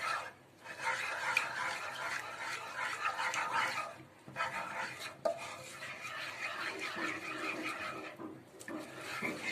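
Wooden spoon stirring a milk and cream mixture in a nonstick frying pan, a continuous rough stirring noise with brief pauses about half a second in, about four seconds in and just after eight seconds.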